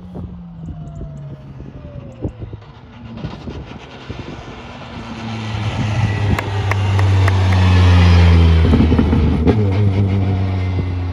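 Rally car approaching at speed and passing close by, its engine building from distant to loud and peaking about eight seconds in. A few sharp cracks sound as it goes past.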